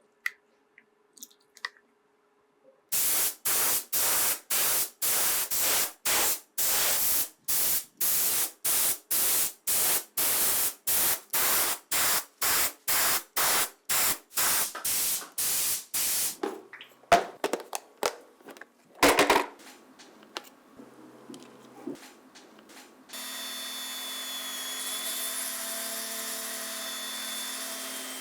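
Spray hissing in short, even bursts, about two a second, stopping after some thirteen seconds, followed by a few clicks and knocks. About twenty-three seconds in a small motor starts and runs steadily with a whine.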